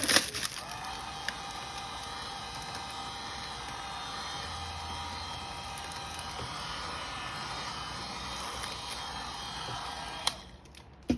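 Handheld heat gun running with a steady whir and a faint whine, blowing hot air over the gift wrapping, then switched off with a click about ten seconds in.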